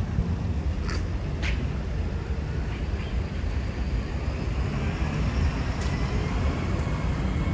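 Road traffic at a busy junction: a steady rumble of passing and idling vehicles, with a faint high whine rising gently through the second half.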